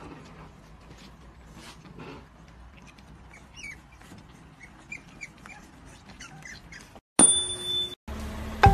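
French bulldog puppies giving faint, high little squeaks and whines, scattered through the first seven seconds, with light clicks. About seven seconds in, a short steady electronic tone sounds, then music with a mallet-like tune starts near the end.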